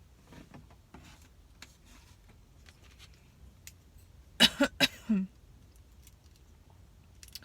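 A woman with a chesty cough gives a quick run of about four loud coughs about halfway through. Before and after them there are only faint clicks and taps from eating.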